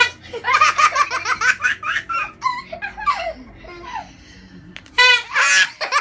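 A toddler's belly laughter, in quick repeated bursts, easing off briefly in the middle, with a loud, bright burst of laughing about five seconds in.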